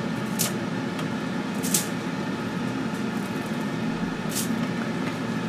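Steady whir of a running kitchen appliance fan, with a few light ticks as raw shrimp are laid onto coarse salt on foil.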